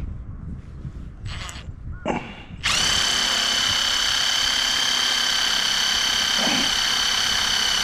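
Power drill running at one steady speed for about five seconds, starting a little over two seconds in and cutting off suddenly, with a few light knocks before it. It is at work on the boom joint of a Yagi antenna whose tapping screws had come out.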